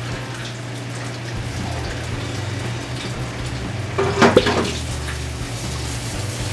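Hot oil in a deep fryer sizzling steadily around a battered ice cream ball, over a steady low hum. A short clatter about four seconds in, as the mesh strainer works in the fryer.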